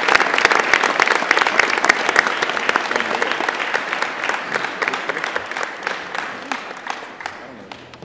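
Audience applauding, dense clapping that slowly fades, then cuts off abruptly at the end.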